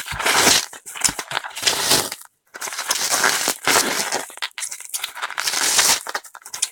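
Bubble wrap and plastic packaging being handled and pulled open by hand: loud crinkling and crackling in bursts, with a brief pause about two seconds in.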